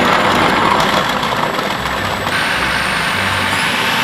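Electric food processor running, its blade chopping whole shallots and garlic cloves. The motor's whine shifts higher in pitch partway through as the pieces are cut fine.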